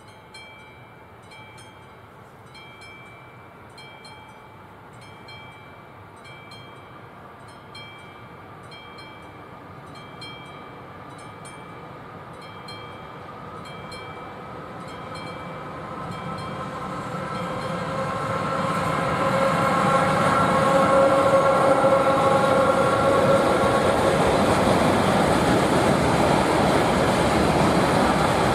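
A freight train of pipe-loaded flat wagons, hauled by two class 230 electric locomotives, approaching and passing. It grows from a faint rumble to a loud, steady running noise of wheels on rail from about two-thirds in, with a tonal whine from the locomotives. In the first half a faint high ding repeats about once a second until the train drowns it.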